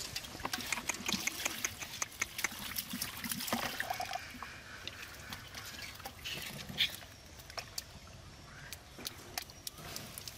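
Hands squelching and slapping through wet, sloppy mud, with many short wet clicks and drips, busiest in the first four seconds and sparser after, with one sharp wet click about seven seconds in.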